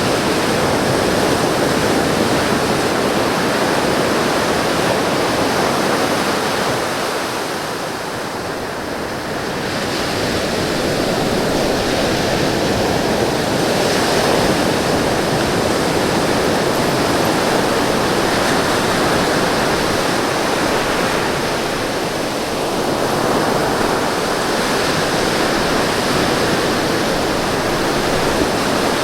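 Ocean surf breaking and washing up the beach: a continuous loud rush that eases a little about eight seconds in and again about twenty-two seconds in, then swells back.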